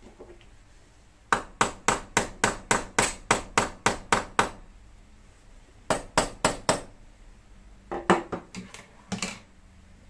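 Hammer driving a concrete nail through the end of a pegboard wall brace. Three runs of sharp blows at about four a second: a long run of a dozen or more, then four, then about six less even ones near the end.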